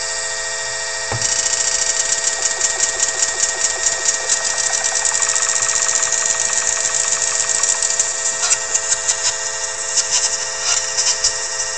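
Electronic sample playback from Max5 patches controlled by an Akai LPD8: held tones under a short slice of a sample looping very fast, which turns into a dense, buzzing, machine-like stutter from about a second in as the playback position, pitch and speed are shifted with the controller's knobs.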